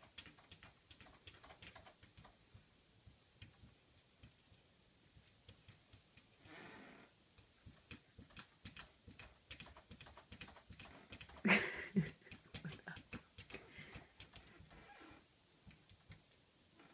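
A cat pawing at a mirror: faint, irregular clicks and taps of its claws and paws on the glass and frame, with a brief scrape, and a louder knock about two-thirds of the way through.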